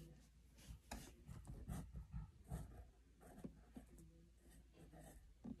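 Faint, irregular scratching strokes of a pen writing or drawing on paper.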